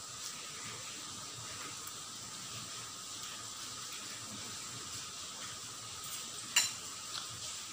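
A steady background hiss, then a metal spoon clinks once against a ceramic bowl about six and a half seconds in, with a short ring, and a fainter tap follows.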